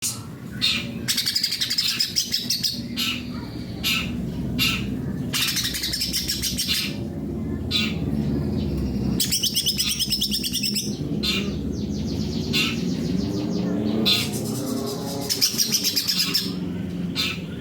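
Cucak ijo (green leafbird) singing actively, a varied song of rapid warbles and fast trills delivered in repeated phrases with short pauses between them.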